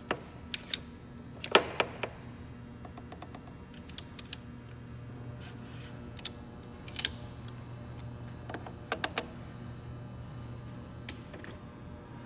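Scattered sharp clicks and knocks of gearbox parts and tools being handled, loudest about one and a half seconds and seven seconds in, over a steady low hum.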